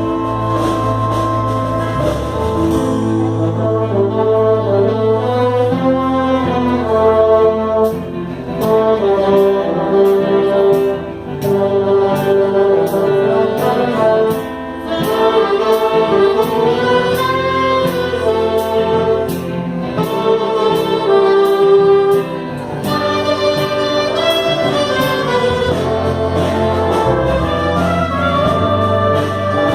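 Brass band playing an instrumental melody on saxophones, trumpets and trombones over a steady drum beat.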